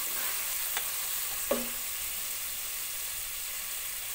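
Chopped red onion frying in olive oil and margarine in a pot, a steady sizzle. The stirring spoon clicks against the pot twice in the first two seconds.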